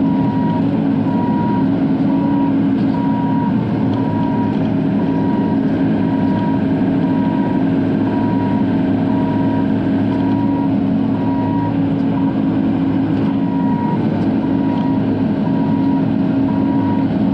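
Bobcat E42 mini excavator's diesel engine running steadily, heard from inside the cab, with a high tone beeping on and off about once a second.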